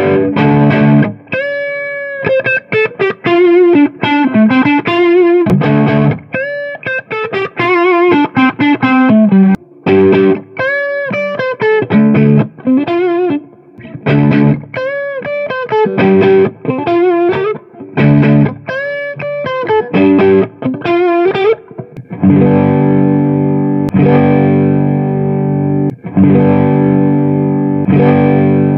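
Electric guitar through an overdrive pedal set to full drive, the pedal powered by a vintage-style zinc 9-volt battery: single-note lead lines with bends and vibrato, then about two-thirds of the way in, distorted strummed chords.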